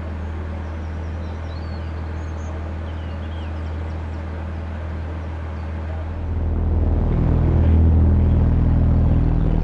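Class 142 Pacer's underfloor diesel engine running steadily at idle, then about six seconds in opening up and getting louder with a deeper, fuller drone as the throttle is applied.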